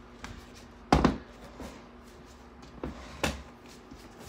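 Handling knocks as a phone is moved and repositioned: one sharp knock about a second in, then two smaller knocks about three seconds in.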